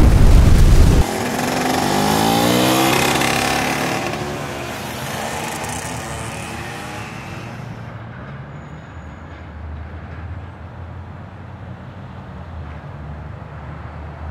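A loud blast-like burst of noise cuts off about a second in. An engine-like sound then rises in pitch and fades away into a low steady rumble.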